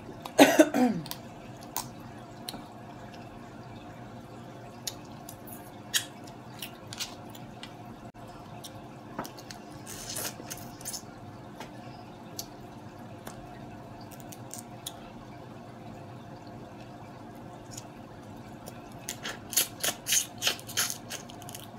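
Close-up eating sounds of steamed blue crab: scattered cracks and clicks as the shell is picked apart, with wet sucking and lip smacking as meat is pulled from the shell and fingers. A short loud squeak drops in pitch about half a second in, and a quick run of wet smacks and sucks comes near the end.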